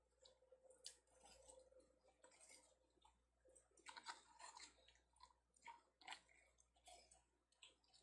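Faint, irregular clicks and wet snicks of a kitchen knife slicing pieces off a peeled Korean melon (chamoe) held in the hand.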